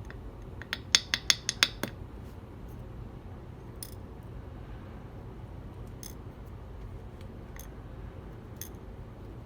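A quick run of about seven sharp metallic clicks about a second in, then a few faint scattered ticks: the small pins and springs of a disassembled dimple lock being handled and set down.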